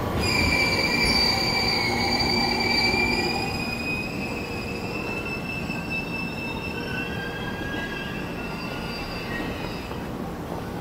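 E231 series 900 electric commuter train's wheels squealing against the rails, a high steady squeal over the train's running rumble, loudest in the first few seconds and then easing off.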